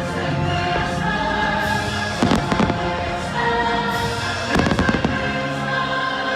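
Fireworks bursting and crackling over the show's music, a choir singing held chords. Clusters of bursts come about two seconds in and again near five seconds.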